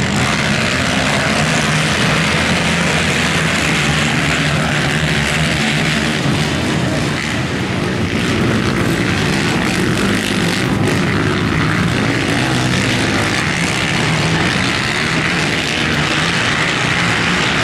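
Several racing ATV quad engines running hard together, blending into one loud, steady engine drone.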